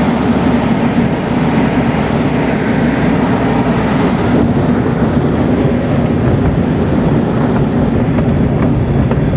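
Cockpit noise of a Pioneer 200 light aircraft landing on a grass strip: the engine running steadily at idle power, with the rush of air. Later on, a rough rumble as the wheels roll over the grass.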